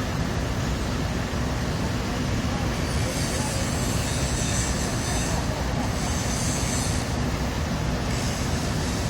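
Heavy crane machinery running with a steady low rumble, and a high squeal that comes and goes three times.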